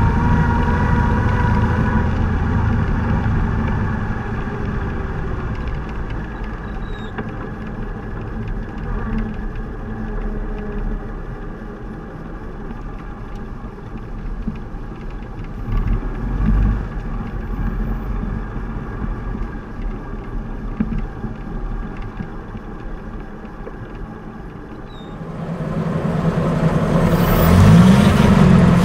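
1927 Rolls-Royce 20 HP's straight-six engine running as the car drives along and gradually slows, with road and wind noise. About 25 s in, the sound turns suddenly louder and closer, the engine running with a pitch that rises and falls again near the end.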